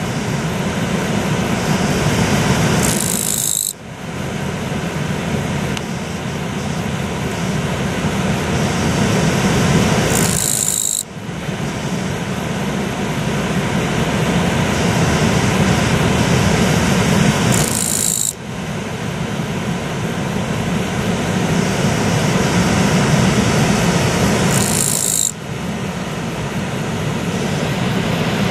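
Steady rushing of a river, with a short, high, harsh insect buzz about every seven seconds, four times, each lasting about a second. The insect is a katydid that is taken for a kirigirisu.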